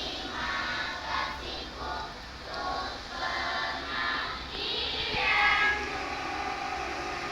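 A choir singing a song together, several voices at once.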